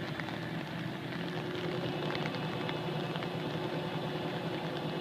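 Fire truck engine running steadily: a low, even drone with a few faint clicks over it.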